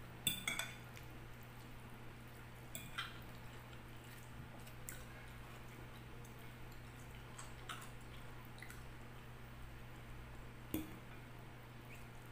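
Metal fork clinking and scraping against a glass bowl while stirring through a leafy vegetable salad: a few sharp clinks, loudest just after the start and again near the end, over a low steady hum.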